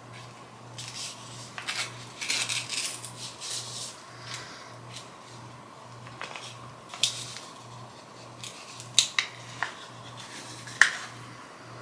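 Hands opening the packaging of a bar of soap: rustling and scraping, then several sharp clicks and taps, the loudest near the end.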